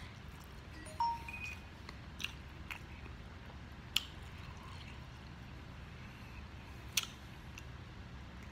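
Someone chewing soft instant ramen noodles, with a metal fork clicking sharply against the dish a few times, most clearly about four and seven seconds in, as it digs into the noodles.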